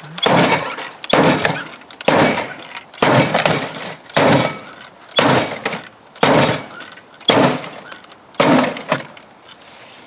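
Nine heavy blows about a second apart, striking the glass door of a discarded microwave oven and cracking and shattering it.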